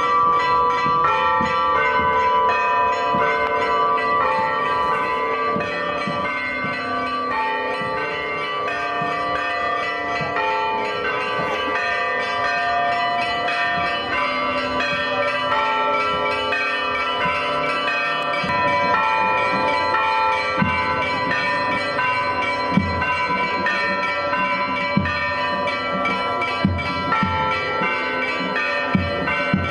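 Church bells ringing a continuous peal, several bells of different pitches sounding over one another with a new stroke every second or so.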